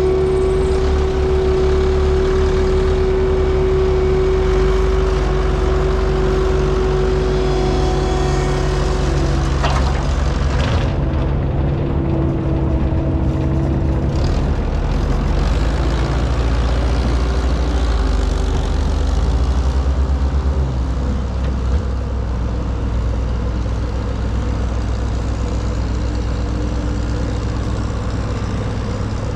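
Heavy equipment's diesel engine running steadily under load, with a steady whine over it that ends with a sharp click about ten seconds in; the engine note shifts a little about two-thirds of the way through.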